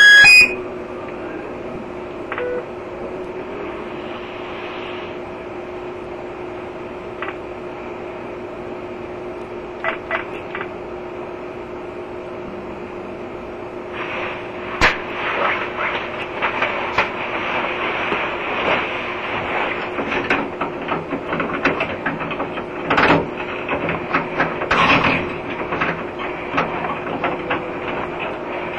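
A steady hum with a few isolated clicks, then from about halfway in a continuous run of irregular clattering, scraping and knocking.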